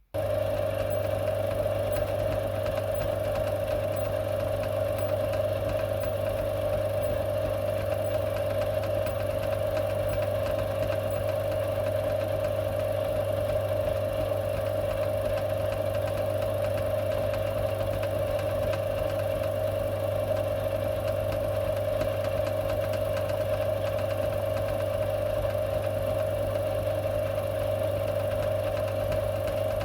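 Small metal-turning lathe running steadily at constant speed: an unchanging motor hum with a prominent mid-pitched drone. It starts abruptly at the beginning.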